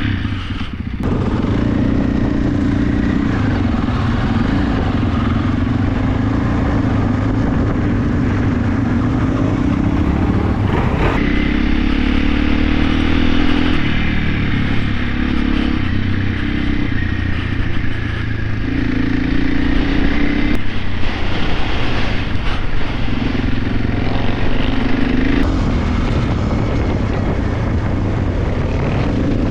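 Dirt bike engine running while ridden, heard from on board, its revs rising and falling with throttle and gear changes.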